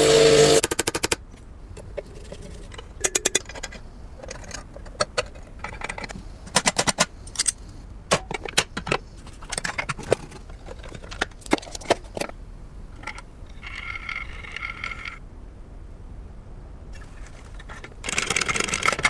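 Restored antique sewing machine running briefly, then stopping. After that comes a long stretch of sharp metal clicks and quick clattering runs as the mechanism is worked, and the machine starts running again near the end.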